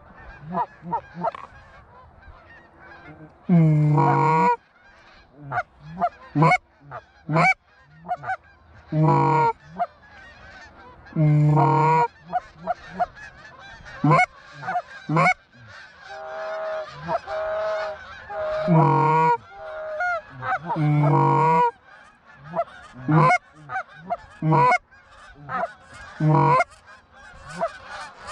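Goose honking and clucking: a fast, irregular string of short sharp honks, broken by about five longer, louder drawn-out honks spread through the stretch.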